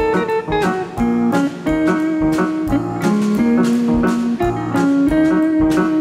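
Live band music: a solid-body electric guitar plays the melody in long held notes over a steady drum-kit beat.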